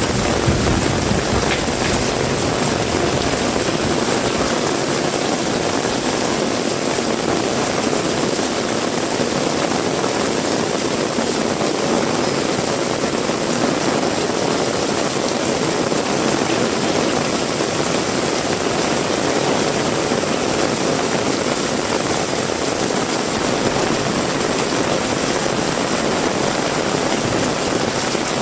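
Heavy rain falling steadily, a loud, even hiss. A low rumble underneath fades out within the first second or two.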